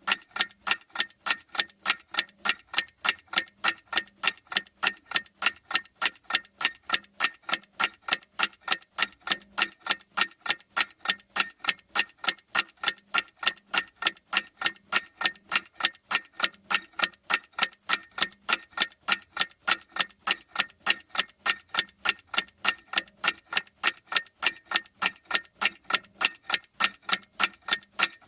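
Clock tick-tock sound effect of a countdown timer: sharp, evenly spaced ticks, a few each second, going on steadily.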